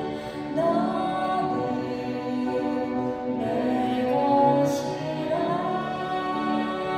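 A Korean Catholic worship song performed live by male and female singers on microphones, accompanied by two violins and a grand piano.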